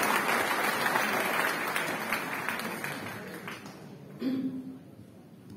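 Audience applauding in a large hall, the clapping fading away over about four seconds; a brief voice is heard just after it dies down.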